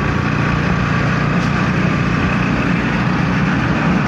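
Engine of a small vehicle running steadily while driving, heard from on board with road and wind noise; a steady, even hum.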